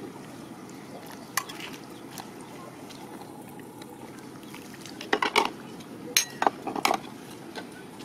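Metal ladle stirring a pot of soup and clinking against the metal cooking pot: one clink about a second in, then a quick cluster of clinks around five to seven seconds in, over a steady low hiss.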